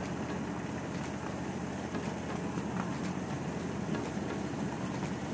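Large-scale Dash 9 model locomotive set with a gas engine and hydraulic drive running steadily under load, pulling a long train of loaded hopper cars: an even rumble of engine and rolling wheels on the rails.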